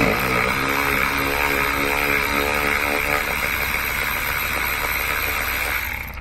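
Milwaukee cordless electric ratchet with a swivel socket spinning out a 10 mm throttle body bolt. The motor runs with a whine for about six seconds, then stops just before the end.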